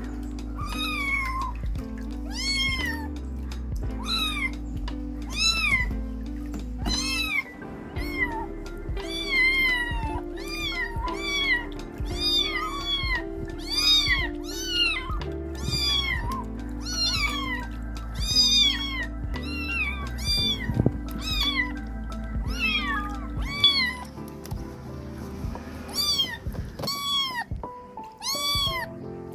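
Several kittens meowing over and over in high, thin calls that rise and fall, about one or two a second and sometimes overlapping, over background music.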